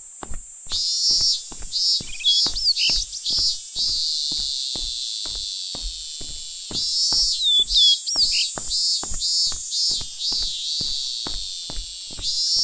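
Electronic music with a steady clicking beat, layered with bursts of bird-like chirping sound effects over a constant high hiss.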